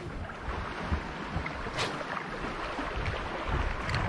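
Wind buffeting the microphone over sea surf washing on shoreline rocks, with two brief high hisses about two seconds apart.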